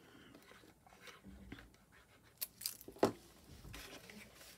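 Folded paper pieces being handled and fitted together: faint rustling, with two sharp clicks about two and a half and three seconds in, the second louder.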